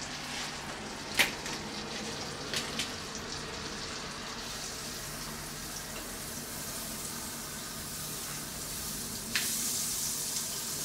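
Butter melting and sizzling in a stainless steel frying pan, moved around with a metal utensil. There are a few sharp clicks in the first few seconds, and the sizzle grows louder near the end.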